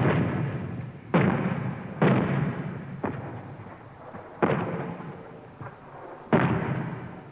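Ceremonial artillery salute salvos, firing one after another as a victory salute: about five loud booms and two fainter ones, each sudden and dying away in a long rolling echo.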